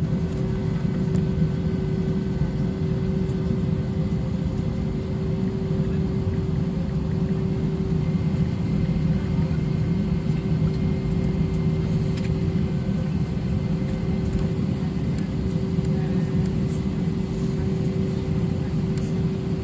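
Steady jet airliner noise: a low rumble with a constant hum on top, holding level with no rise in pitch.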